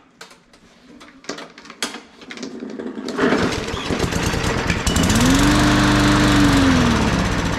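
Small push-mower engine catching about three seconds in on carburetor cleaner sprayed into the intake. It runs loud and rough, its pitch rising and then sagging back near the end, a few knocks before it catches. The owner takes its failure to run properly for a stuck carburetor needle.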